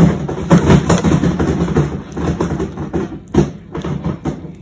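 A baby making loud, uneven noise in the background, low-pitched and continuous with a few sharp knocks, loud enough to compete with a voice.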